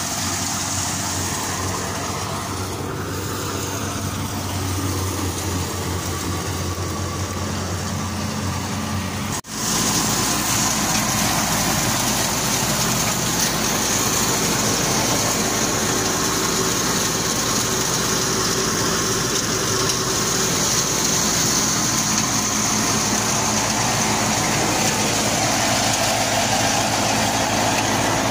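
Belt-driven threshing machine and its engine running steadily while threshing mung bean plants, a continuous mechanical drone with a hiss of threshed material. About a third of the way in the sound cuts out for an instant and comes back louder.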